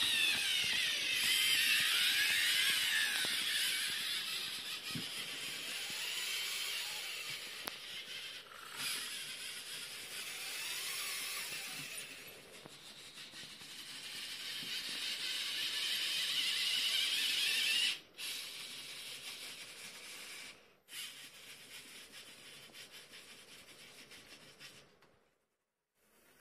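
Small LEGO electric motors and plastic gear trains whining as the automated warehouse machinery moves, the pitch rising and falling as the motors speed up and slow down. The whine fades and swells again, then cuts off sharply late on, leaving softer mechanism noise.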